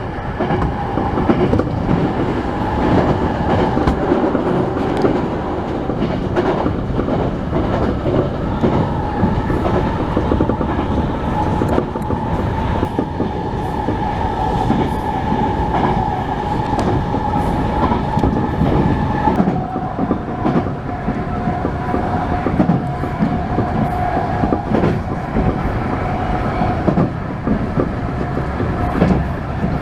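Electric commuter train running along the track, wheels clacking over the rail joints, with a steady whine that steps down slightly about two-thirds of the way through.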